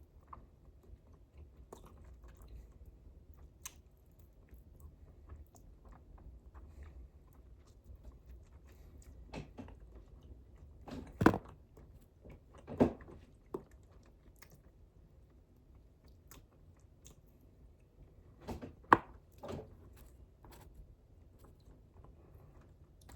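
A person chewing and biting food close to the microphone, with soft mouth clicks throughout. There are a few louder bites, a pair about halfway through and another pair a few seconds later.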